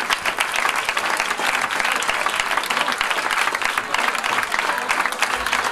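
Audience applauding: a dense, steady mass of hand clapping from a large crowd.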